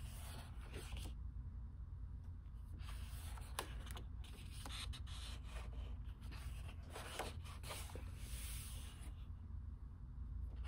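Pages of an oversized hardcover Artist's Edition art book being turned by hand: several paper swishes and rustles with a few light taps, over a steady low hum.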